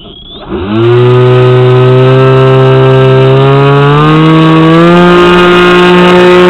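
Brushless electric motor and air propeller of an Aquacraft Swamp Dawg RC airboat, heard from a camera mounted on the boat. About half a second in it spins up with a steeply rising whine, then runs at high throttle with a steady, loud buzzing drone that steps up in pitch twice, around four and five seconds in.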